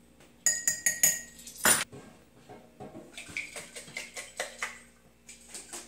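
Metal spoon clinking against a small ceramic dish while stirring salt into a little water to make a brine. Several sharp, ringing clinks come in the first two seconds, then quicker, lighter tapping and scraping.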